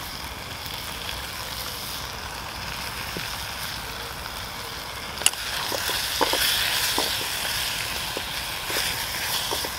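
Fresh greens sizzling in a hot frying pan over an open wood fire while a wooden stick stirs them. About halfway through there is one sharp click, then the sizzling gets louder, with short knocks of the stick against the pan.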